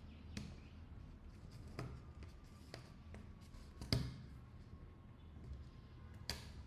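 A few sharp, separate clicks and taps of small phone parts being handled and fitted during a repair, over a low steady hum; the loudest click comes about four seconds in, another near the end.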